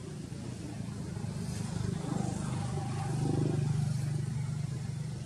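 A motor vehicle's engine running as it passes, a low steady hum that grows louder to a peak about three and a half seconds in, then eases off.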